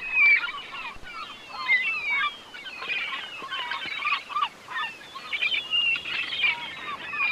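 A flock of birds calling: many short overlapping squawks and chirps, densely packed and continuous.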